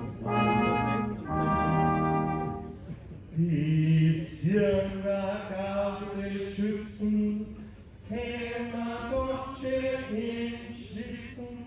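Brass band of trumpets, trombones and tubas playing in the open, a series of held chords with short breaks between phrases.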